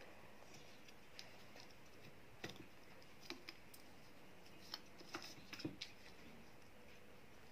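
Faint, irregular small clicks and taps of parts being handled as the cover is fitted back onto a stand fan's oscillation gearbox, most of them between about two and six seconds in.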